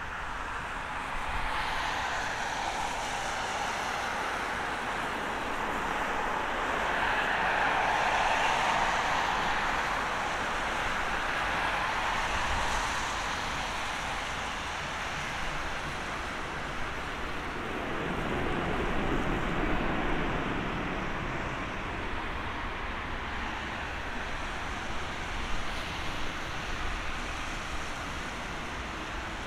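Airbus A350-900 jetliner landing on a wet runway: the whine of its Rolls-Royce Trent XWB engines on short final gives way to steady engine noise and the hiss of tyre spray as it touches down and rolls out. A second, lower swell of engine noise comes about two-thirds of the way through as the aircraft slows.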